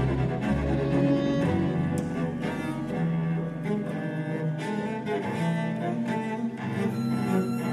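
Solo cello and symphony orchestra playing a passage of a cello concerto, with low bowed strings prominent in held notes.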